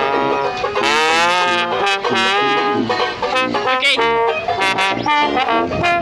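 A small brass-and-banjo band of trombone, banjo and tuba playing a lively tune, the trombone carrying the melody with a slide in pitch about a second in over the banjo's plucked chords and the tuba's bass.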